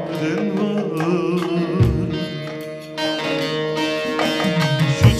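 Bağlama (Turkish long-necked saz) played live with quick plucked strokes over ringing drone strings, with a man singing a wavering Turkish folk melody over it.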